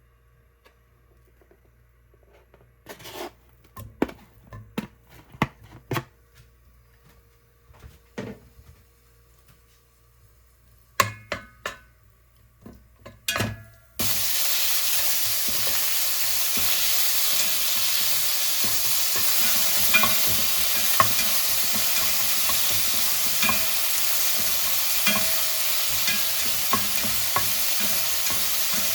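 Scattered knocks and clinks of kitchen utensils, then food hitting a hot oiled pan: a loud sizzle starts suddenly about halfway in and stays steady. The clicks of a spatula stirring and tossing the fried rice run through it.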